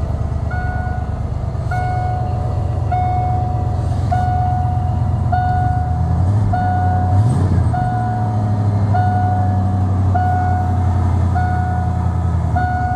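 1989 Ford F-150's 5.0 L (302) V8 idling, heard from inside the cab, its exhaust running without catalytic converters through a Thrush glasspack. A dashboard warning chime repeats about once a second throughout. The idle rises a little about six seconds in.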